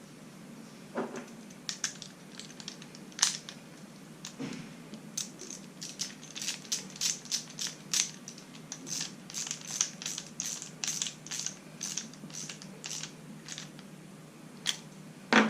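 Ratchet wrench with a 9/16 socket clicking in a regular run of sharp metallic clicks, about three a second, as the cam pin is turned back in on the power feed. A few separate knocks of tool and parts being handled come first.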